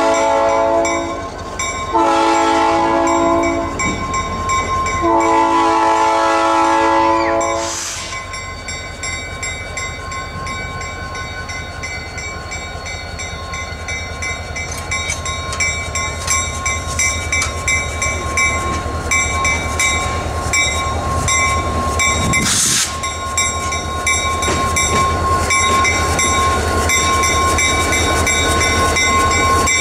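Diesel locomotive horn sounding long chime blasts over the first eight seconds or so, the last the longest. Then EMD GP30 2198's diesel engine running as the locomotive comes up and passes close, its rumble getting louder near the end.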